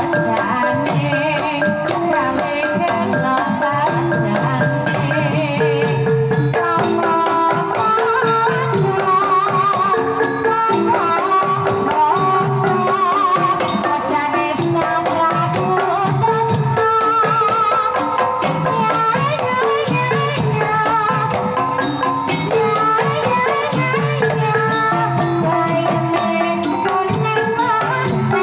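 Live Banyumasan gamelan playing a tayub gending: a kendang hand drum beats out the rhythm under ringing bronze pot-gong notes, with a sinden singing over it with a wavering vibrato.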